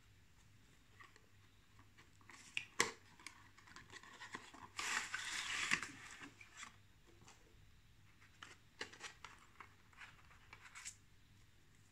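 Thin frosted plastic bag crinkling and rustling as it is handled, with a sharp click about three seconds in and a louder stretch of rustling lasting about a second around five seconds in. Scattered small taps and clicks follow as the hair clipper is handled.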